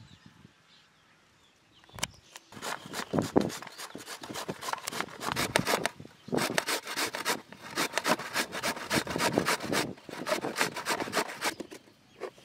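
Carrots being grated by hand on a stainless-steel box grater: quick repeated strokes, several a second, starting about two seconds in, with a short break near the middle, and stopping shortly before the end.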